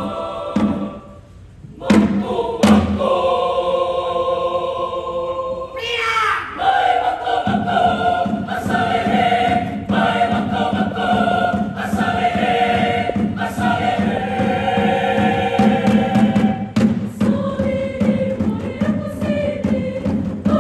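Mixed choir singing a chant-like song in several parts, with hand-drum strikes. The singing drops out briefly about a second in, then comes back with sliding pitches, and the drum strikes come thicker through the second half.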